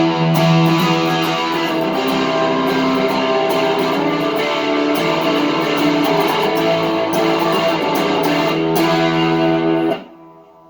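Electric guitar with GFS Lil' Killers humbucker pickups, played through a little overdrive. Strummed chords are left to ring and change a few times, then are cut off abruptly near the end.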